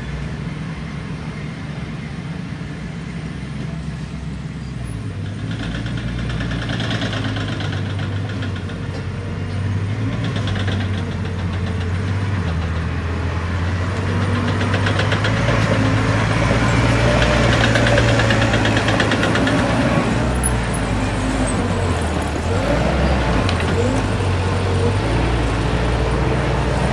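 Diesel engine of earthmoving equipment (small bulldozer or dump truck) running under working load. It grows louder toward the middle, with a rattling sound coming and going over it.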